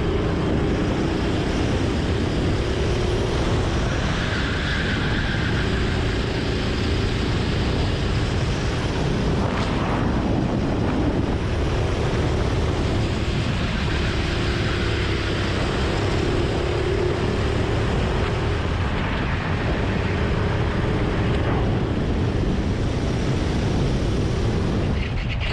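Go-kart engine running at speed around a track, its note rising and falling as the driver accelerates and lifts for corners, with one rising whine about ten seconds in.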